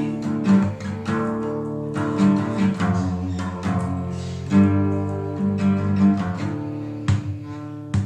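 Acoustic guitar playing the closing instrumental bars of the song, picked and strummed notes ringing over a bass line. Near the end it thins out to a few separate strums as it winds down.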